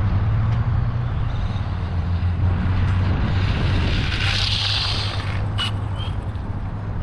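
Wind buffeting the microphone, with the hiss of a Traxxas Bandit RC buggy at full throttle swelling and fading as it runs past about four to five seconds in, then a few sharp clicks near the end.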